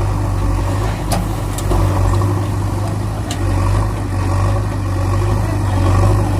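Engine running steadily at idle with a low, even hum, typical of a tractor engine; a few faint clicks sound over it.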